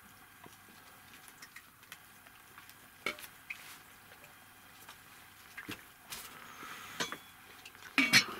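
A dog licking and nibbling at its own hindquarters: faint scattered small clicks and rustles, with a louder clatter near the end.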